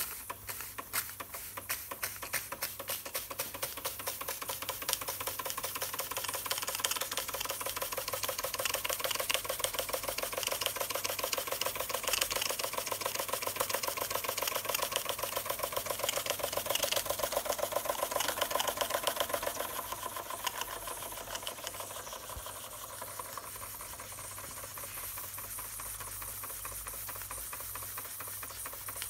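Schoenner "Lipsia" model steam engine running fast: a rapid, even chuffing and clatter from its cylinder and flywheel mechanism, with steam hissing. It gets quieter about twenty seconds in.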